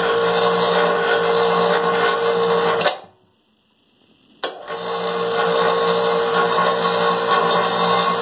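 Harbor Freight 880 lb electric hoist's motor running with a steady pitched hum, stopping about three seconds in and starting again about a second and a half later.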